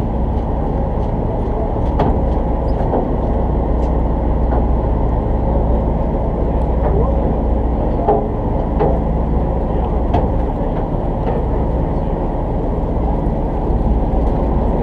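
Boat engine running with a steady low drone, faint voices and occasional light clicks over it.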